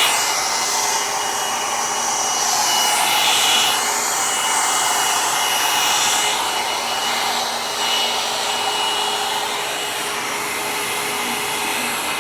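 Revlon hair dryer running steadily, with a steady whine over the rush of air as it dries hair.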